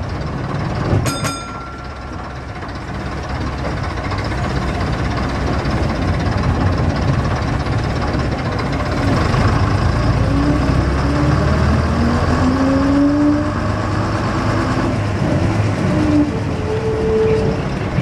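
AEC-engined RT double-decker bus running through town traffic, its engine rumbling steadily. From about ten seconds in, whining tones climb in pitch one after another as it picks up speed. A brief metallic ting comes about a second in.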